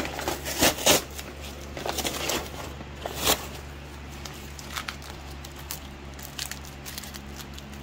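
Brown paper wrapping crinkling and rustling as blue tape is pulled off it, dense for the first three seconds or so, then only a few scattered faint rustles over a steady low hum.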